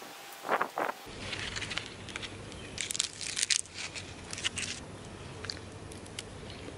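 Crinkling and rustling as Cape gooseberries in their papery husks are picked and handled, coming in several short clusters of crackles. Two brief, louder sounds come about half a second in.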